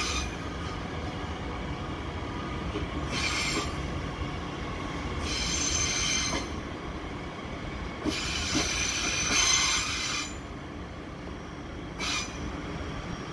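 DB Regio electric multiple-unit train running past, its wheels squealing high-pitched in about five separate spells, the longest two-thirds of the way in, over the steady low rumble of the running train.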